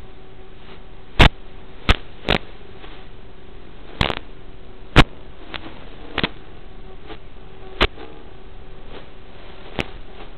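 Steady static hiss from an analog FPV video receiver's audio channel, broken by about eight sharp pops at irregular intervals, the loudest about one second and five seconds in.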